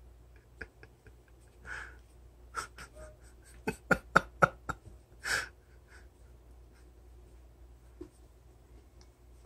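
A run of quick, sharp clicks and taps, loudest about four seconds in, from a cat's claws and paws on a window blind's top rail as it backs along it onto a cardboard box. Two short breathy puffs come before and after the clicks.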